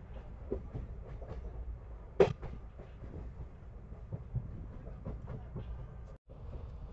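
Train running, heard from on board: a steady low rumble with scattered clicks and knocks of the wheels over the track, the loudest a sharp knock about two seconds in. The sound cuts out for an instant near the end.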